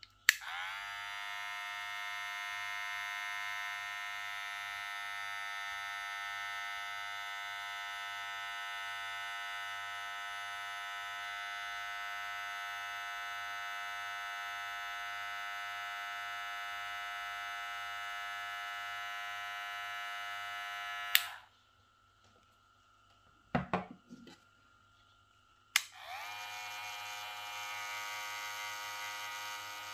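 Rozia 70 cordless metal-body hair clipper switched on with a click and running with a steady buzz, its motor at about 6500 RPM, then switched off with a click about 21 seconds in. A few handling knocks follow, and near the end a Kemei cordless clipper clicks on and runs with a similar steady buzz.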